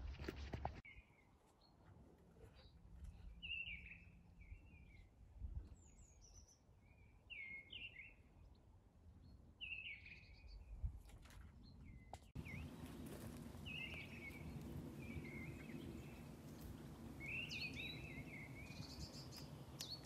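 Small birds chirping and singing in short, scattered phrases, faint over low outdoor background noise, with a few soft knocks. From about twelve seconds in, a steadier low rumble sits beneath the birdsong.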